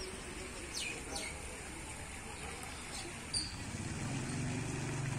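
Small birds chirping in the open garden: two quick falling chirps about a second in and a short high note a little past three seconds, over faint background voices.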